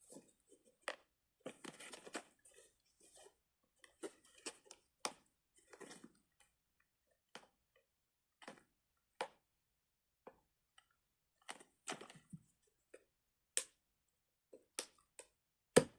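Small plastic fidget toys and their container being handled: scattered faint clicks, taps and rustles, with a sharper, louder click near the end.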